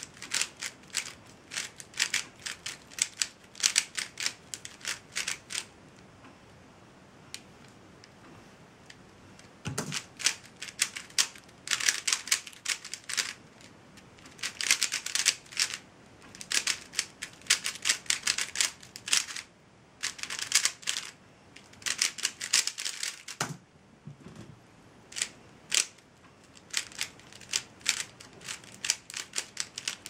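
Dayan Zhanchi 3x3 speedcube's plastic layers clicking and clacking as they are turned fast by hand, in rapid bursts of turns with short pauses. The turning stops for a few seconds after the first bursts, then runs on in fast bursts. Two low thuds come, one about ten seconds in and one about two-thirds of the way through.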